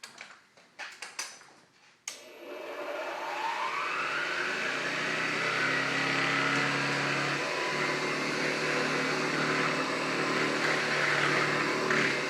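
A 1926 Hoover 700 vacuum cleaner is switched on about two seconds in, after a few clicks and knocks. Its motor whine rises in pitch as it spins up over a couple of seconds, then runs steadily.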